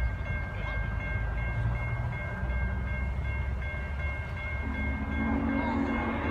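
Grade-crossing bell ringing in a steady, even pattern. About three-quarters of the way in, the low chime steam whistle of Norfolk & Western 611, a J-class 4-8-4 steam locomotive, begins to sound in the distance as it approaches.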